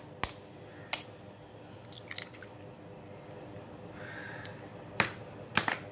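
Eggs being cracked with a kitchen knife blade: a few sharp taps on the shells in the first couple of seconds and two more near the end, with a soft sound about four seconds in as a shell is pulled apart and the egg drops into the pan.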